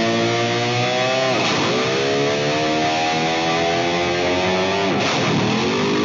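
Racing quad engines accelerating hard off the line. The pitch climbs, then drops sharply twice, about a second and a half in and again near the end, as the riders shift up a gear. Guitar-driven background music plays underneath.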